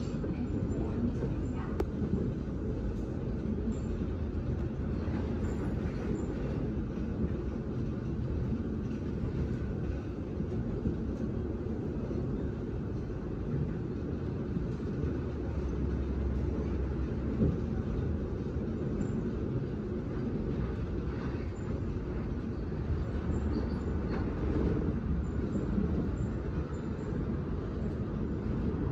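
Seoul Metro Line 4 electric train running at speed, heard from inside the carriage: a steady low rumble of wheels and running gear on the rails.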